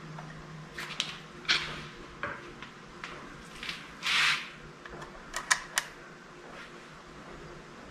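Scattered light clicks and taps of small hand tools and parts being handled while the milling machine's motor switch is wired up, with a short rasping scrape about four seconds in and a quick run of clicks soon after.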